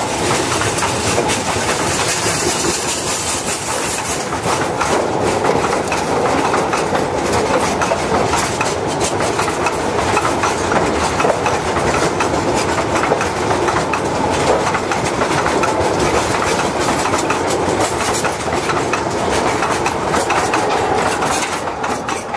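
A train of steel coal wagons on 762 mm narrow-gauge track rolling past close by, wheels clattering over the rails in a steady loud din. The sound starts to fade near the end as the last wagon goes by.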